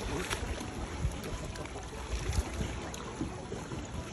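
Pool water sloshing with small splashes as dolphins swim and nose floating buoys about at the surface, over a low rumble of wind on the microphone.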